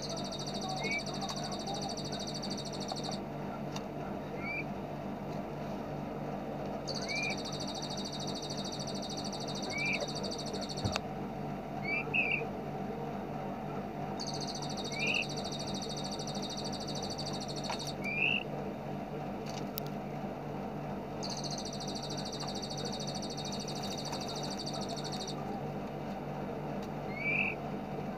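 Looped songbird training recording: a high, rapid machine-gun trill in bursts of about three to four seconds, recurring about every seven seconds, with short rising chirps between the bursts, over a steady low hum.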